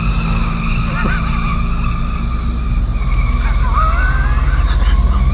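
Steady high-pitched tyre squeal from an Opel Corsa A's front wheels, which stand skewed on a badly bent control arm and scrub along the road, over the low running of a car engine and road noise. The squeal briefly rises in pitch about three and a half seconds in.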